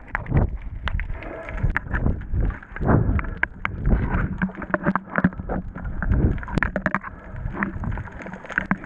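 Muffled water sloshing and splashing around a camera held just under the sea surface, with many irregular knocks and clicks against its housing.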